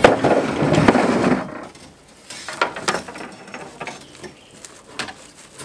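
Pickup truck tailgate being lowered, a loud metallic clatter with knocks over the first second and a half. Then lighter scrapes and ticks as fence brace wire is pulled off a coil in the truck bed.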